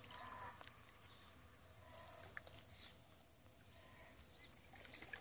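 Near silence: faint outdoor ambience with a few faint, short chirps.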